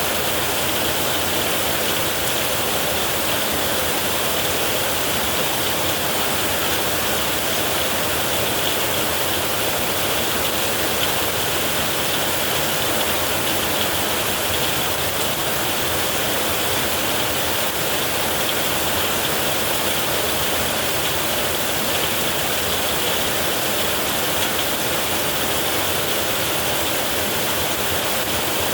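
Heavy rain falling steadily on a metal roof, an even hiss with no breaks and no thunder.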